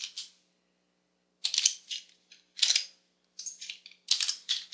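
Computer keyboard keys and mouse buttons clicking in short quick clusters, a few clicks at a time with pauses between, as keyboard shortcuts are pressed to copy and paste text.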